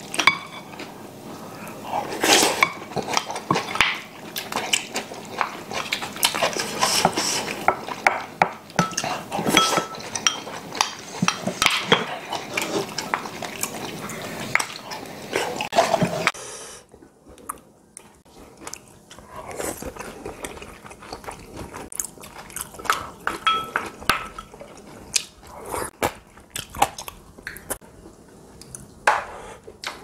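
Mealtime eating sounds: chopsticks and spoons clicking against ceramic bowls and plates, with chewing. The clicks are scattered and irregular and turn quieter a little past halfway.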